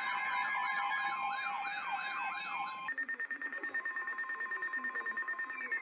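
Electronic emergency-vehicle sirens. Several rapidly sweeping yelp tones sound together, and about three seconds in they give way to a steady, rapidly pulsing tone. Near the end a tone begins to slide down in pitch.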